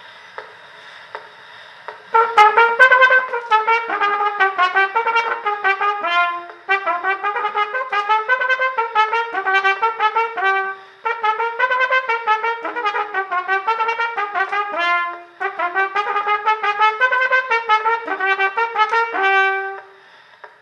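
A trumpet playing a quick tune of many short notes, starting about two seconds in and running in four phrases broken by short breath pauses, played close into the horn of a tinfoil phonograph to record it.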